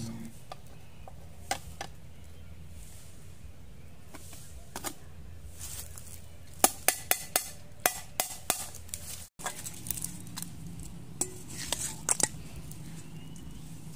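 A metal spoon knocking against the rim of a metal cooking pot, a run of sharp clicks about three a second. After a break, a few metallic clatters as pieces of fish are tipped from a colander into a steel bowl.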